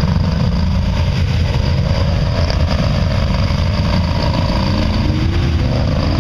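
Car engine running hard under load as the car pushes through a mud bog, its wheels churning the mud.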